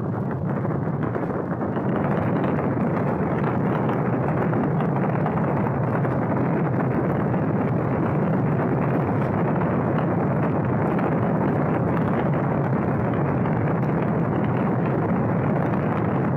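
Saturn V rocket's five F-1 first-stage engines firing at liftoff: a loud, steady, deep rumbling roar that swells over the first couple of seconds and then holds.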